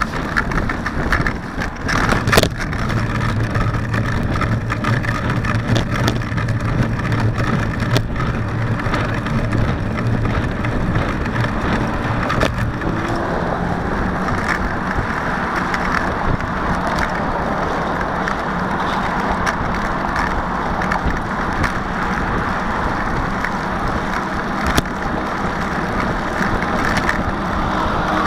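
Steady wind and road noise from a moving bicycle, picked up by a camera mounted on the bike, with a few sharp knocks as it jolts over bumps and traffic passing. Near the end a Hino diesel truck comes up close behind and its engine adds to the noise.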